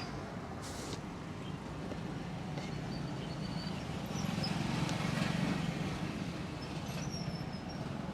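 Road traffic running steadily, swelling as a vehicle passes about halfway through.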